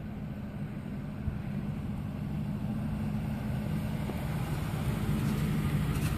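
A 2006 Lincoln Navigator 4x4 running, a steady low engine and driveline drone that grows gradually louder.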